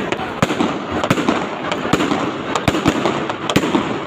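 Fireworks going off: a rapid, irregular run of sharp bangs and pops, a few each second, over a continuous crackling haze.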